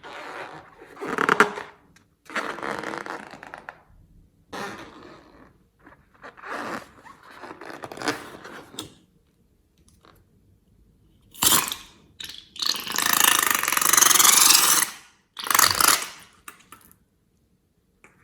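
Slime being handled, pressed and stretched by hand in a run of about seven separate noisy bursts, the longest and loudest roughly two-thirds of the way in.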